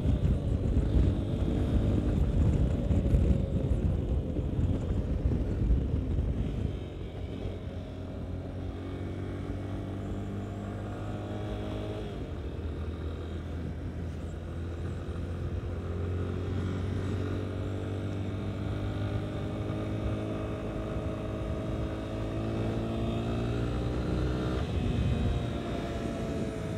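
Yamaha Ténéré 250's single-cylinder four-stroke engine running on the open road, with wind rushing over the microphone, loudest in the first six or seven seconds. The engine note climbs slowly and breaks off twice, about twelve seconds in and again near the end, as it changes gear.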